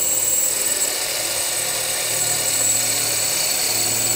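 Cordless drill running steadily with a high-pitched whine as it bores a pin hole through annealed saw-blade steel, sized for 1/8 inch brazing-rod handle pins.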